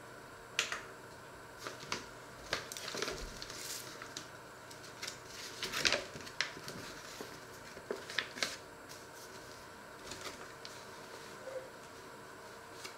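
Paper bag being handled and opened by hand: scattered sharp clicks and short bursts of crinkling paper, the busiest in the first half.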